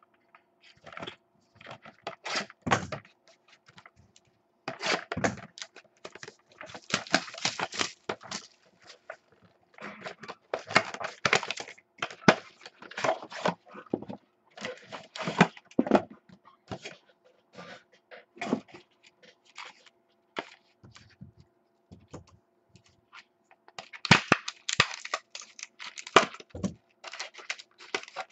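Typing on a computer keyboard in irregular bursts of rapid key clicks, over a faint steady hum.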